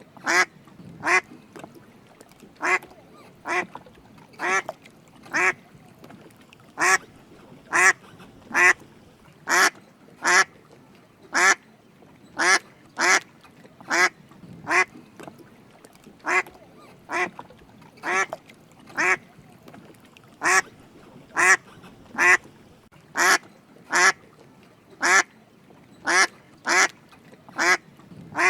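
Drake mallard duck quacking repeatedly: short quacks, many coming in quick pairs, about one or two a second.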